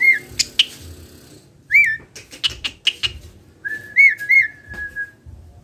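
Javan pied starling (jalak suren) calling: short arched whistled notes mixed with sharp, harsh clicking notes, then a longer held whistle with two more arched notes about four seconds in.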